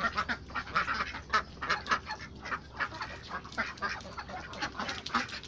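Domestic ducks quacking in quick, overlapping calls, several a second.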